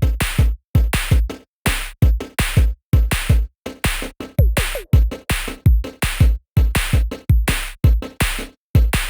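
Electronic background music with a punchy drum-machine beat: heavy kick hits with deep bass, about two to three a second, each cut off sharply.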